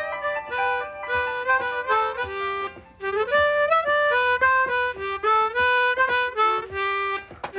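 Harmonica playing a tune in short stepping notes, breaking off briefly about three seconds in.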